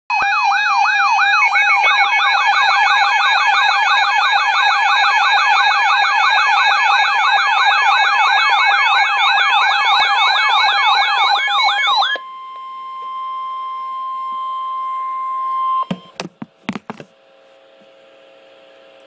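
Emergency weather alert sounding: a loud electronic warbling alarm whose tones sweep up and down about four times a second. About twelve seconds in it gives way to a quieter steady single tone, the NOAA weather radio warning tone, which ends a few seconds later in several clicks.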